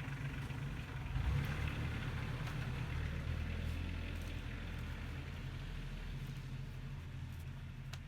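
Tractor engine running steadily at idle, with a brief louder moment about a second in.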